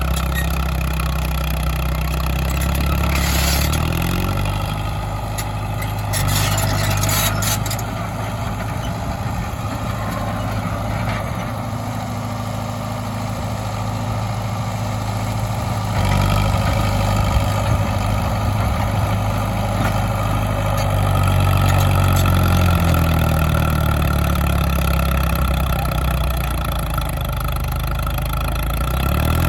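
1940s Caterpillar D4 bulldozer's four-cylinder diesel engine running under load, its speed dropping and picking up again several times as the machine works. Squeaking and grinding from the old machine come through over the engine.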